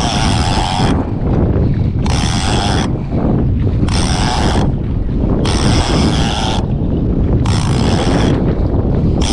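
Accurate Valiant 600NN conventional jigging reel whirring in short bursts, about every one and a half to two seconds, as line is wound in against a heavy hooked grouper. Steady wind on the microphone and boat noise run underneath.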